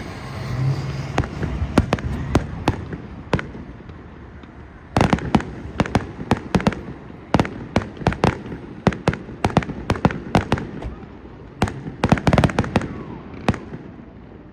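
Fireworks going off: many sharp bangs and crackles at an irregular pace, coming in dense flurries about five seconds in and again near the end.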